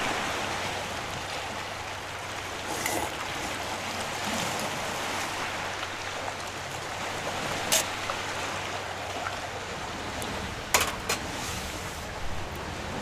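Steady wash of sea surf, with a few short, sharp clicks or knocks; the loudest come about eight and eleven seconds in.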